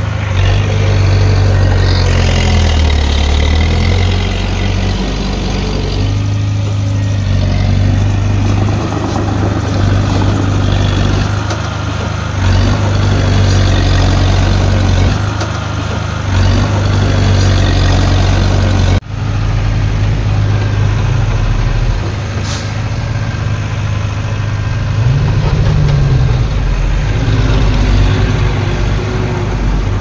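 Heavy diesel engines of a crawler bulldozer and small dump trucks running steadily. About 19 seconds in, the sound cuts off for an instant and then resumes.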